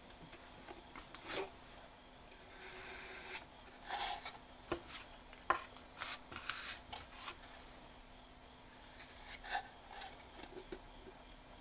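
Wooden spatula scraping and spreading sabiji lacquer paste on a board and on the box's corners, in short irregular strokes with a few light clicks. The strokes cluster in the middle of the stretch and come again briefly near the end.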